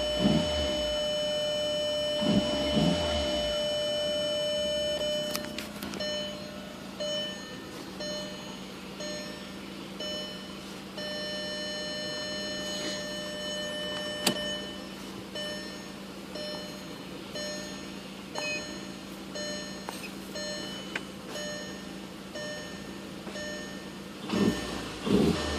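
Electronic warning beeps: one steady tone for about five seconds, then repeated short beeps at the same pitch over a low steady hum.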